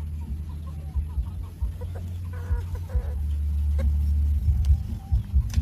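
Japanese bantam chickens clucking softly in short, scattered notes over a steady low rumble.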